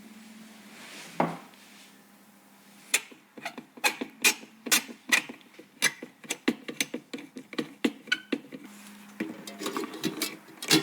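Hard computer parts being handled and fitted during a PC build: a single knock about a second in, then a long run of sharp, irregular clicks and taps, with a denser rattling near the end.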